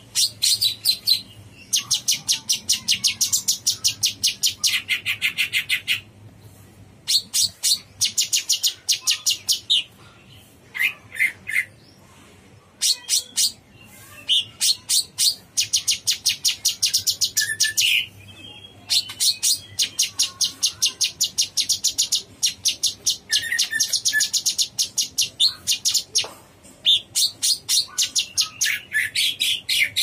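Cucak cungkok leafbird singing in long runs of rapid, high repeated notes, each run lasting a few seconds with short breaks between.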